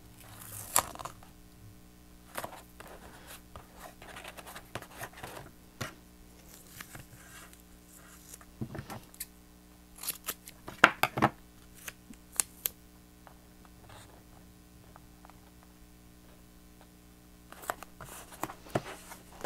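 Intermittent handling of thick double-sided tape and cardstock: short snips, rustles and taps come and go, with a cluster of louder ones about ten to eleven seconds in.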